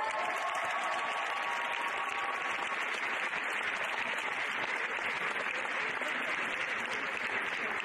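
Audience applauding steadily, with a long high call held over the clapping for the first two or three seconds.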